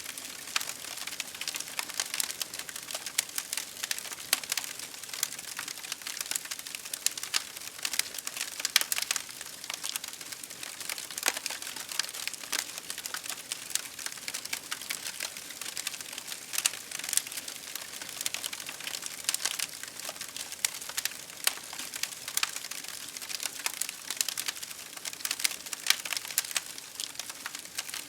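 Campfire crackling: dense, irregular sharp pops and snaps over a steady hiss of rain.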